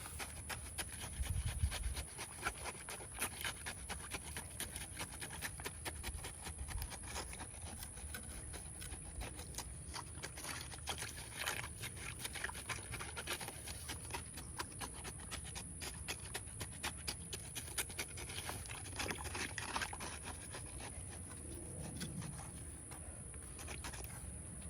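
Concrete being poured and worked into a fence-post hole: continuous gritty scraping and crunching, with irregular clicks throughout.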